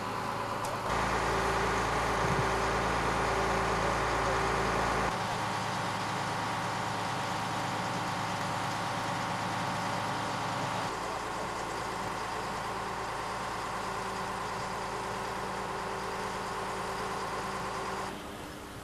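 Truck-mounted crane's engine running steadily as it lifts a heavy bronze equestrian statue. The hum jumps abruptly in level and tone about a second in, again around five and eleven seconds, and near the end.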